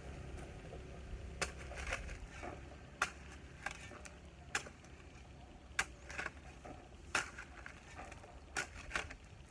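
Steel shovel scraping into a heap of loose red soil and tipping it out, a string of about ten short scrapes and thuds, some in quick pairs.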